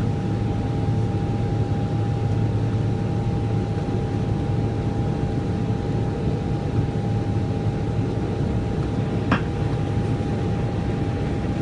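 Boeing 777 cabin noise during the climb: the steady roar of the engines and rushing air, with a constant low hum and a steady higher tone, heard from a window seat. A single sharp click about nine seconds in.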